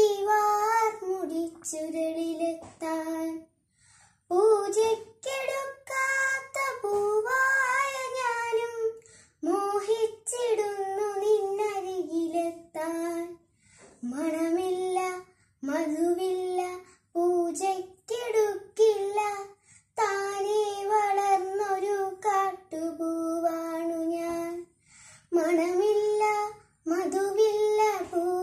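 A young girl chanting a Malayalam poem in the sung, melodic style of Malayalam poetry recitation (kavitha chollal). She is unaccompanied, and her phrases are held and gliding, with short pauses for breath between them.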